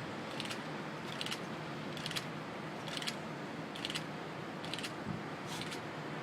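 Steady rain hiss, with a short sharp click about once a second as a phone camera takes a run of photos in quick succession.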